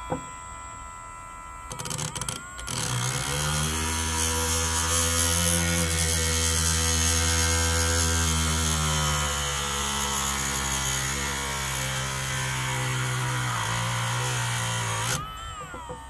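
Parkside Performance PPFBSA 12 A1 cordless rotary tool on its lowest speed setting, its cut-off disc grinding into a thin metal bracket. It makes a steady low hum with a hiss of grinding over it, starting about three seconds in after a few clicks as the disc touches, and stopping abruptly near the end.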